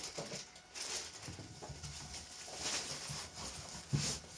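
Large cardboard TV box being lifted and shifted by hand: scattered rustling and scraping of cardboard and packing, with a louder knock near the end.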